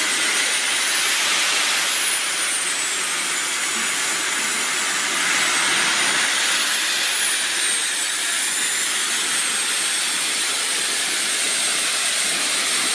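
Miniature jet turbine engines of a large radio-controlled Boeing airliner model running: a steady hiss with a thin high whine that rises and falls twice as the engines change speed, then holds steady.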